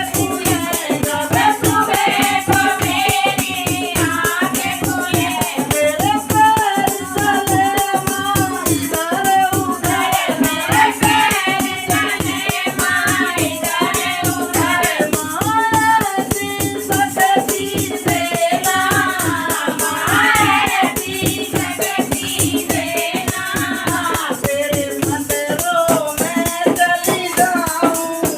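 Devotional bhajan music: a melody over a fast, steady rattling percussion rhythm.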